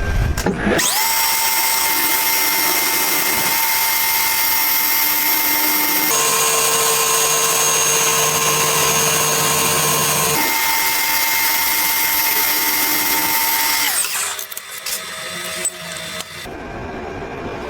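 An electric power tool motor spins up and runs with a steady high whine. Its pitch changes for a few seconds midway, then returns, and the motor winds down about fourteen seconds in.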